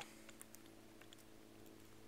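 Near silence: a faint steady hum with a few light ticks.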